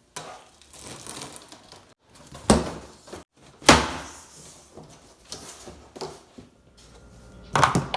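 Knocks and bumps from handling hard objects, with three loud thuds, one near the end, in short clips cut together.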